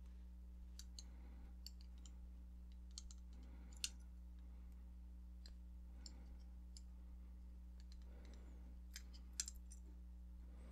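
Faint, scattered clicks of steel pliers gripping and releasing 20-gauge nickel silver wire as it is bent step by step into a tight spiral, with one sharper click a little before the middle. A low steady hum runs underneath.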